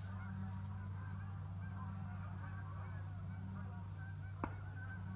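Many distant bird calls overlapping, in the manner of a flock of geese honking, over a steady low hum. One short click comes about four and a half seconds in.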